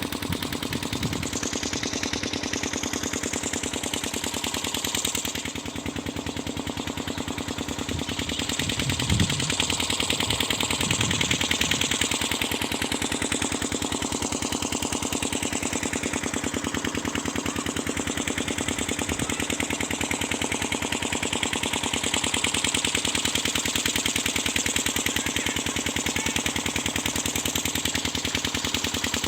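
Engine of an irrigation water pump running steadily, with a fast, even chugging beat.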